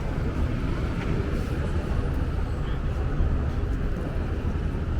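Steady low rumble of outdoor city background noise, with no single distinct event standing out.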